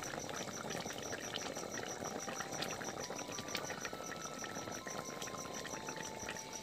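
A cricket chirping in a rapid, evenly spaced series over the low, steady bubbling of curry at the boil in an iron kadhai.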